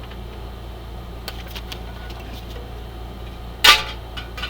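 Oracle cards being handled on a table: scattered light clicks and rustles, then a short, loud burst of card noise about three and a half seconds in, over a steady low hum.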